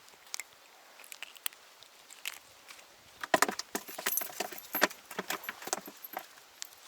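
Irregular small clicks and light metallic clinks, thickest from about three seconds in, as a caught perch is unhooked from a spinner lure and handled in the boat.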